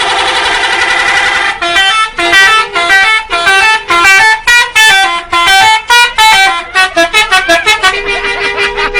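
Bus 'telolet' musical horns playing a tune. First comes a dense cluster of overlapping horn notes, then from about a second and a half in a melody of separate notes stepping up and down. Near the end there is a quick run of short toots and a held note.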